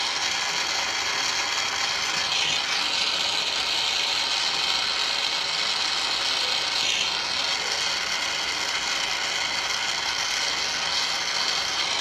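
Gas brazing torch burning steadily with a constant hiss as it heats a pipe joint for silver soldering, the flux melting into the joint; a little louder for a few seconds in the middle.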